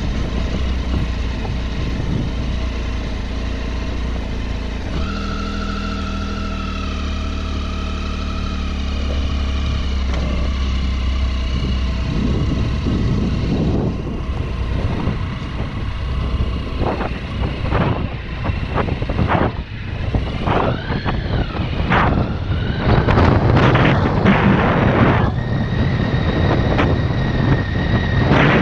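Triumph Tiger XC motorcycle's three-cylinder engine running while it is ridden over a rough dirt track. It holds steady at first, then from about halfway it gets choppier, with repeated knocks and the revs rising and falling.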